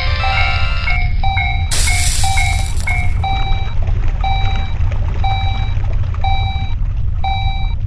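Japanese railroad crossing warning bell sounding its repeated electronic 'kan-kan' beep, about two strikes a second at first, then slowing to about one a second. Under it is a steady low rumble, with a burst of hiss about two seconds in.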